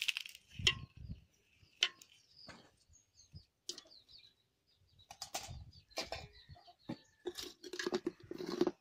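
Irregular scrapes and clinks of a steel box grater being worked over a steel pot, coming thicker in the second half. High bird chirps come in now and then.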